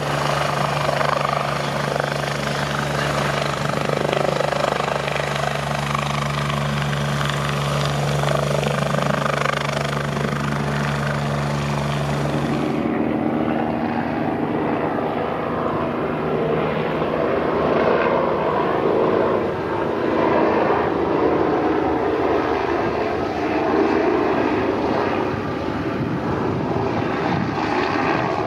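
Twin-turbine helicopter engines and rotors running loudly. An MBB BK117 gives a steady low hum for the first thirteen seconds or so. Then the sound changes suddenly to a Eurocopter EC-145 arriving overhead.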